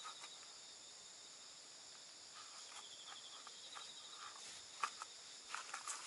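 Insects chirring steadily, a faint continuous high trill, with a few soft clicks and knocks near the end.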